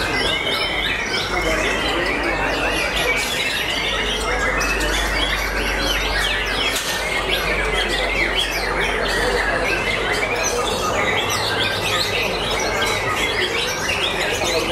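White-rumped shamas singing at a bird-song contest: a dense, unbroken tangle of many overlapping whistles, trills and chirps from several caged birds at once, with a steady low hum underneath.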